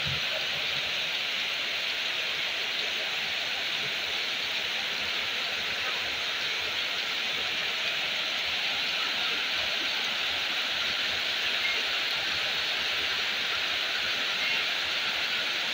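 Heavy rain pouring down steadily, an even hiss that holds at the same level throughout.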